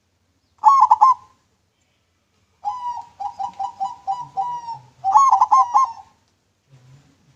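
Zebra dove (perkutut) singing its cooing song: a short clear phrase about a second in, then a run of quick repeated coos, then another short phrase.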